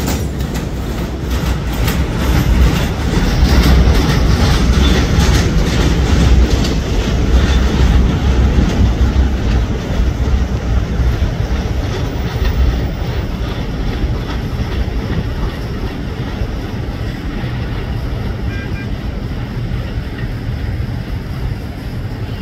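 MTA R211A subway train running on the rails: a loud, steady low rumble with clicks in the first few seconds, growing a little quieter over the second half.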